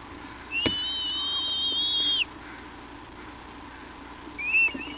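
Bald eagle at the nest giving a long, high, steady whistled call of about a second and a half, then a shorter wavering call near the end. A sharp click comes as the first call begins.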